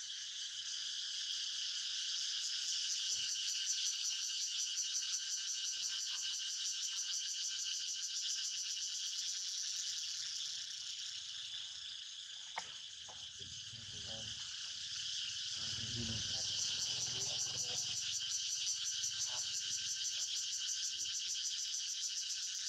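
Dense insect chorus, a steady high buzz that swells, eases off around the middle and swells again. A single click sounds a little past halfway, followed by a few seconds of soft low rumble.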